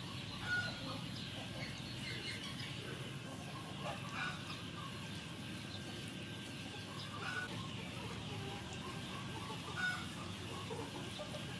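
A kitchen knife slicing through boiled pork belly on a wooden chopping board, over a steady background. Four short animal calls stand out, spaced a few seconds apart.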